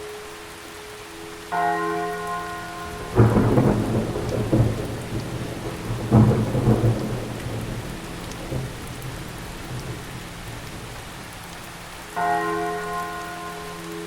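Steady rain with two loud thunderclaps, about three and six seconds in, each dying away over a second or two. A church bell tolls a single stroke about a second and a half in and again near the end, ringing on with a low hum.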